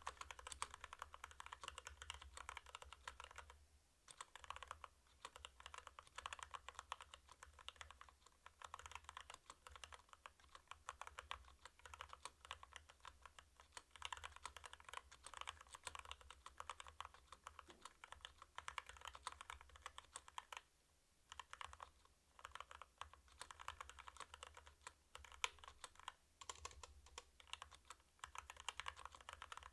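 Continuous fast typing on a CU65 mechanical keyboard with stock Kailh Box Red linear switches: a dense patter of key clacks. There are brief pauses about four seconds in and again about twenty-one seconds in.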